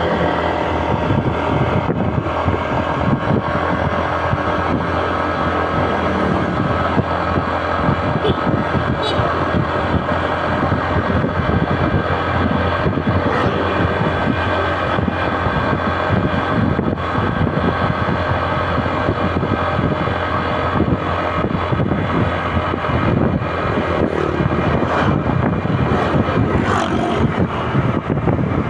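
Motorcycle engine running steadily while riding, with wind on the microphone; its engine has a rough, snoring ('ngorok') note.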